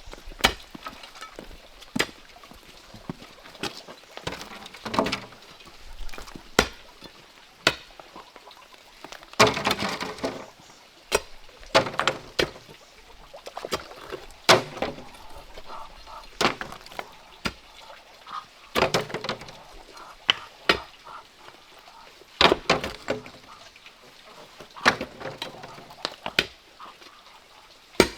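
Iron crowbar being driven into the ground to dig post holes: sharp strikes every second or two, with scraping and loosened earth between strokes.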